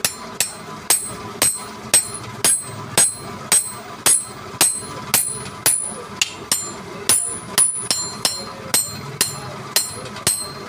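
Hammer striking metal in a steady rhythm of about two blows a second, each blow with a short, high metallic ring.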